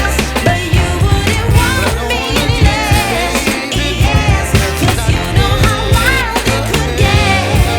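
Background music: a pop song with a sung vocal over a steady beat and bass.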